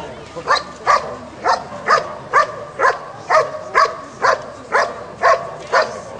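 German Shepherd Dog barking steadily and rhythmically, about two barks a second, at a decoy standing in a blind: the bark-and-hold of IPO protection work.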